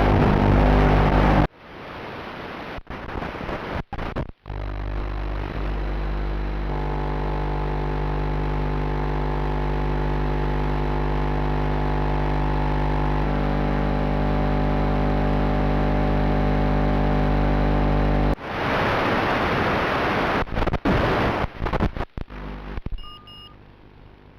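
Fatshark FPV goggles' audio output through a NexWave 5.8 GHz race receiver module giving interference instead of sound: loud static hiss that cuts out after about a second and a half, then a steady electrical buzz for most of the time, then static again with several dropouts, fading near the end. The noise comes from the module's audio compatibility problem with the goggles.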